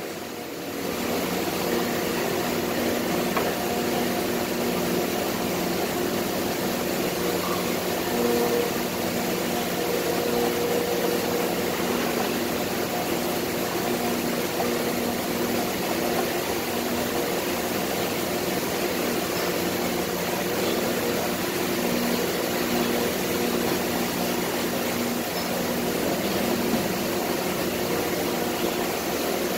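Factory machinery running, with a large plastic injection moulding machine among it: a steady drone carrying several low, steady humming tones.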